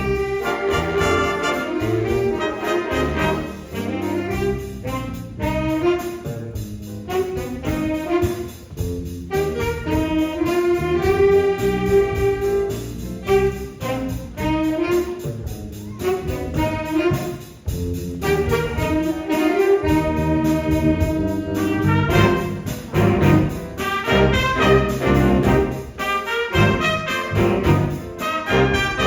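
A school jazz ensemble playing a big-band jazz chart live, the brass and saxophone sections together over the band, in short punchy figures with a few brief breaks.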